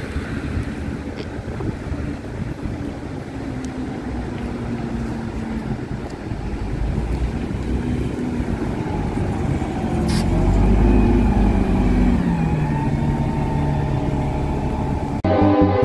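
Articulated city bus approaching and driving past close by, its engine growing louder to a peak about ten seconds in, then its engine note dropping as it pulls away, over steady street traffic noise. Music starts just before the end.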